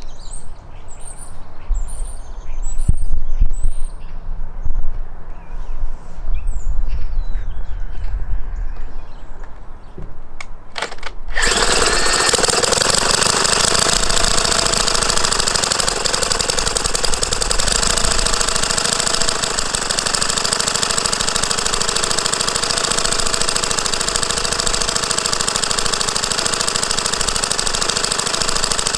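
Hoglet V-twin model internal-combustion engine catching about eleven seconds in and then running steadily and evenly. Before it starts there is a low rumble and a few bird chirps.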